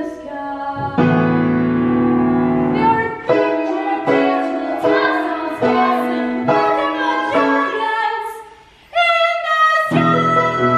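Female voices singing a musical-theatre song with piano accompaniment, in held, sustained notes; the music dips briefly near the end, then comes back in.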